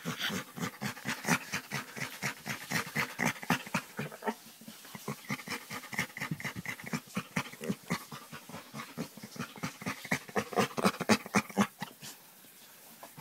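Chocolate Labrador giving fast, rhythmic panting huffs, about four a second, the weird noises he makes when scratched on the back. They stop about a second before the end.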